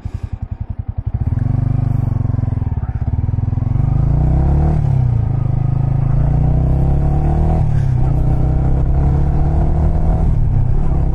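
Royal Enfield GT 650 parallel-twin engine running as the motorcycle is ridden: slow separate firing pulses for about the first second, then a steadier engine note whose pitch dips and rises again twice, about five and eight seconds in.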